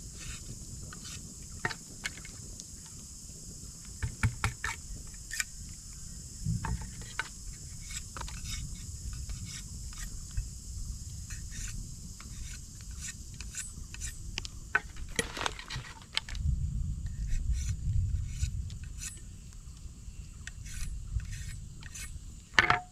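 Knife whittling bamboo into a cup and chopsticks: scattered scrapes and clicks, with the sharpest knock near the end. A steady high drone of night insects runs behind.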